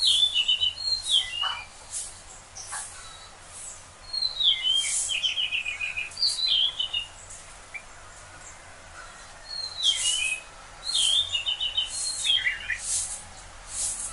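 Songbirds singing in the morning: one bird repeats a short phrase of quick falling notes ending in a rapid trill, three times, with short sharp high chirps from other birds in between.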